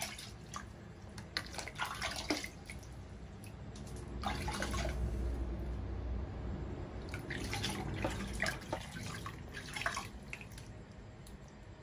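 Bathwater dripping and splashing in a plastic basin as a hand pours and lets water run over a baby monkey's head, in irregular small splashes and drips.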